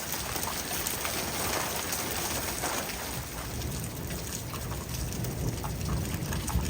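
Heavy rain falling steadily, with many close drops striking a surface.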